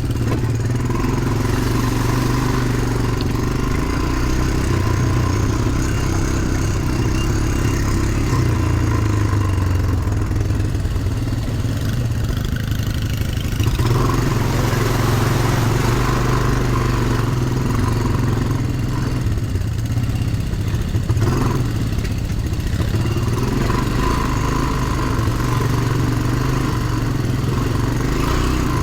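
ATV engine running while riding off-road, the engine note shifting with the throttle, with changes in pitch about 14 seconds in and again around 20 seconds.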